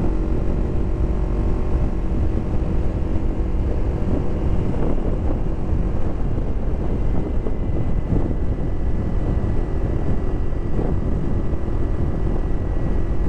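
Kawasaki Ninja 250 parallel-twin engine running at a steady cruise, heard from the rider's seat. Heavy wind buffets the microphone over it as a dense low rumble.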